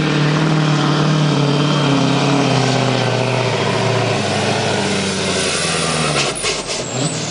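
Scania V8 diesel truck pulling a weight-transfer sled at full throttle. Its engine note holds steady, then sags steadily lower as the sled's growing load drags the revs down. About six seconds in the engine drops off and a few short, sharp hissing bursts follow.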